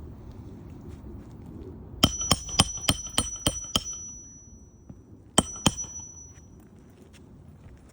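Hammer striking a roof snake to drive a roofing nail under an overlapping shingle, with metallic ringing hits: seven quick strikes, then two more a few seconds later.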